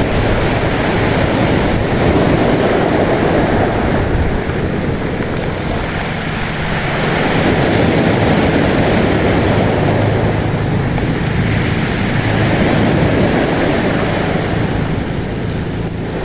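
Sea surf and wind rushing over the microphone: a continuous loud rushing noise that swells and eases every few seconds.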